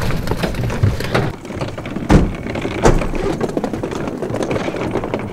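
Wheeled suitcases rolling and rattling over gravel, with footsteps crunching, and two sharp knocks about two and three seconds in.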